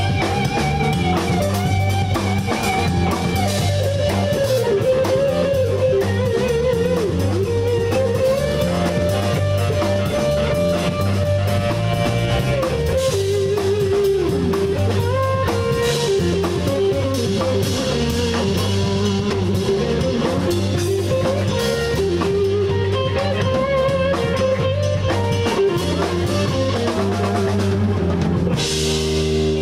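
Live rock band playing an instrumental passage: electric guitar, bass guitar and drum kit keep a steady groove under a lead line that bends and wavers in pitch. Near the end the band hits and holds a chord.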